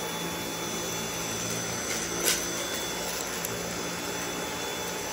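Dyson V8 cordless stick vacuum running steadily on its regular, not max, power setting, with a thin high whine over the rush of air. A single brief click comes a little over two seconds in.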